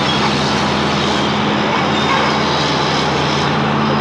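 Heavy diesel engines of a wheeled tractor-scraper and the crawler dozer push-loading it, running steadily under hard load with a constant low engine drone.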